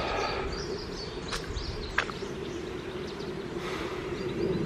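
Woodland ambience: small birds chirping now and then over a steady low background hum, with one sharp click about two seconds in.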